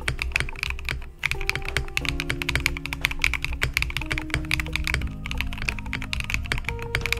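Fast typing on a Bauer Lite mechanical keyboard, a dense run of key clacks with a brief pause about a second in, over lo-fi background music.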